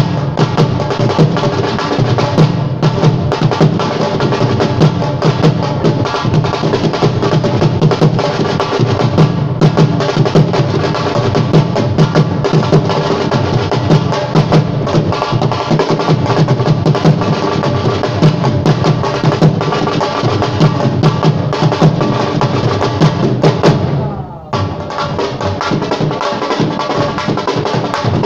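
Live devotional music led by fast, dense drumming, with sustained melodic tones underneath. It drops off briefly about 24 seconds in, then resumes.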